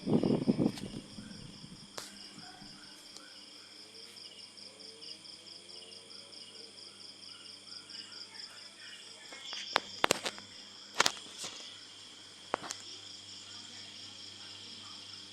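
Crickets chirping in a steady, fast-pulsing high trill, over a faint low hum. A few sharp clicks come about ten to thirteen seconds in.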